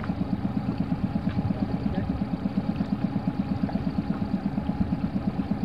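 Outboard motor of an inflatable chase boat idling, a steady low pulse of many beats a second.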